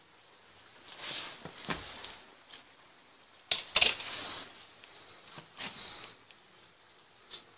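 Handling noises from repair work: several short scraping or rustling bursts and sharp clacks, the loudest a pair of clacks about three and a half seconds in, with a last click near the end.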